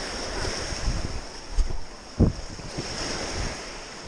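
Small waves breaking and washing over rocks at the shoreline, with wind on the microphone. Two low thumps come around the middle, the second the loudest.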